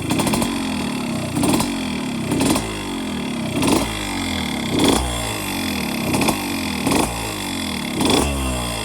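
Yamaha RX-Z's two-stroke single-cylinder engine being blipped about once a second, each rev falling back toward idle. Mixed in is a piston noise the owner puts down to a cylinder bore worn oval, and he says it is about as loud as the exhaust.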